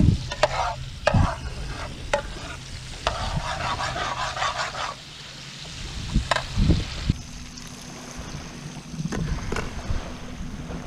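A metal spoon stirring in a frying pan of hot oil on a portable gas camping stove, knocking against the pan several times, with a stretch of sizzling in between. About seven seconds in, this gives way to a steady background noise.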